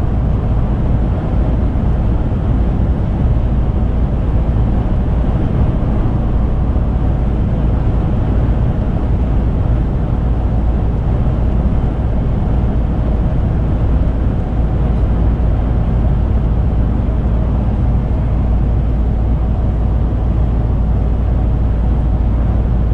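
Steady low rumble of a lorry cruising at motorway speed: engine, tyre and wind noise mixed, with no changes.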